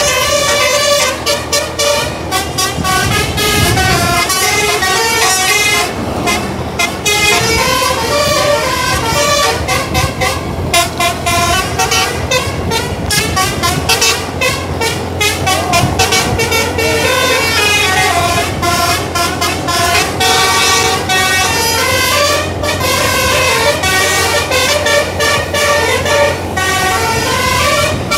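Bus telolet horn, a Basuri multi-tone air horn, playing a long string of fast melodic tunes. The notes step up and down in repeating patterns, with a low engine hum underneath during the second half.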